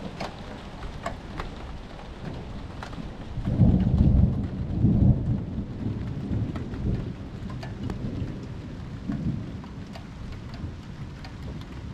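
Steady rain with the tick of drops near the microphone. About three and a half seconds in, a deep roll of thunder rumbles up, is loudest for a second or two, then dies away, with a smaller swell a few seconds later.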